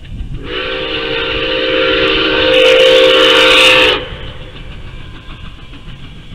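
Steam whistle of Nickel Plate Road 2-8-4 Berkshire locomotive No. 765 sounding one long blast of several tones at once, growing louder, then cutting off sharply about four seconds in. A low rumble runs underneath.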